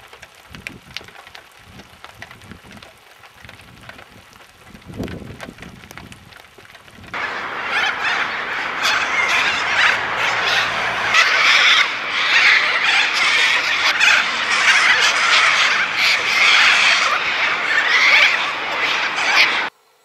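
A flock of long-billed corellas screeching and squawking together in a loud, dense chorus. It starts abruptly about seven seconds in and cuts off just before the end; before it there are only faint low sounds.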